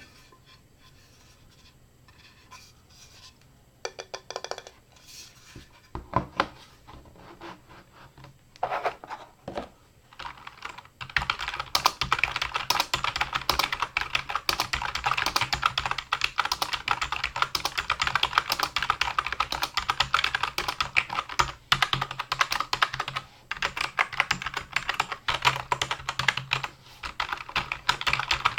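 Typing on an OG KBJ-006UB USB keyboard. At first there are a few scattered keystrokes and short runs of keys, then, from about a third of the way in, steady fast typing: a dense stream of key clicks.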